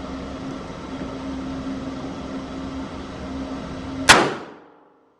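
A steady droning hum, then a single sharp gunshot about four seconds in, with a short echoing tail that dies away within half a second.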